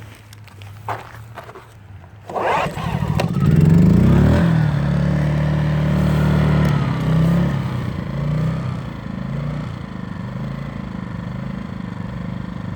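Small inverter generator engine starting about two seconds in, quickly running up in speed, then running steadily and easing down to a lower, even speed.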